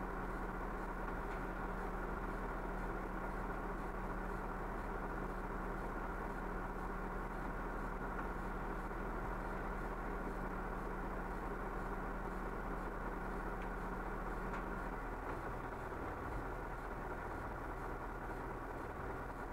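Fire vehicle's engine idling steadily, a constant low hum that shifts a little about fifteen seconds in.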